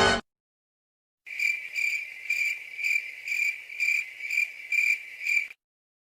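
Crickets chirping, a steady high trill pulsing about twice a second, starting about a second in and cutting off suddenly near the end: the stock 'crickets' sound effect used as a gag for awkward silence.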